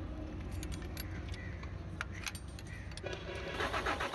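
Metallic clicks of a wrench on a diesel injector line fitting over a low steady hum, while air is bled from the Isuzu 6HK1 common-rail fuel system. About three and a half seconds in, a rhythmic pulsing of about four beats a second begins as the engine is cranked on the starter.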